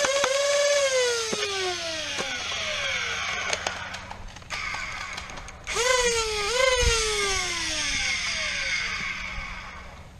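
Flywheel motors of a motorized Nerf blaster whining at full speed, then spinning down over a few seconds once the rev trigger is let go. Near the middle they are revved twice in quick succession, each time coasting down again, with a few sharp clicks in between.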